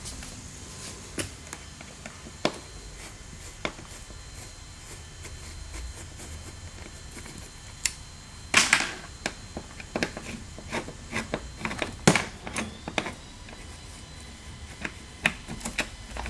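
Phillips screwdriver backing the seat-back screws out of a Club Car DS golf cart's seat-back bracket: scattered light clicks and taps of the driver and hardware. There is a louder brief clatter about eight and a half seconds in, and clusters of small knocks around twelve and sixteen seconds.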